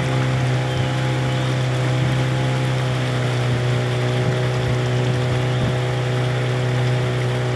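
A small boat's outboard motor running steadily at speed, a constant engine drone, with water rushing and churning along the hull in its wake.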